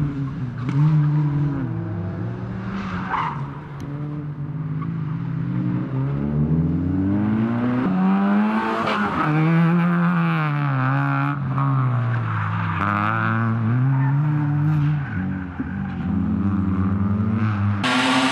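Small hatchback rally cars driven hard through tight corners, their engines revving up and dropping back again and again as they change gear and brake, with tyres squealing through the turns. Near the end the sound changes abruptly to a louder, rougher car.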